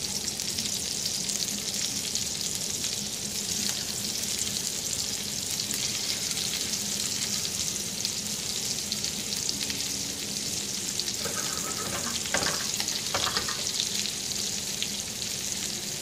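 Pancetta-wrapped meat rolls sizzling and crackling as they fry in butter in a frying pan, a steady hiss.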